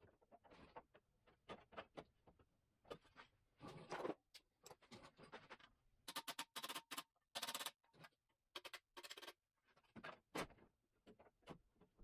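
Faint, irregular clicks, taps and short scrapes of a thin steel patch panel being bent and handled with a hand tool while it is shaped to fit the Beetle's inner fender well.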